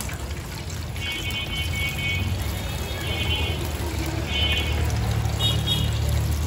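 Background music: bright high notes in short phrases over a steady low bass.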